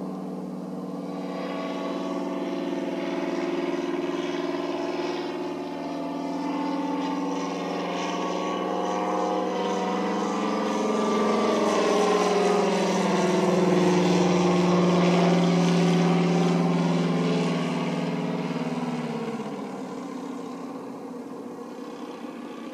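Tiger Moth biplane's engine and propeller droning steadily as it flies by. The pitch slides down as it passes, loudest about two-thirds of the way through, then fades as it moves away.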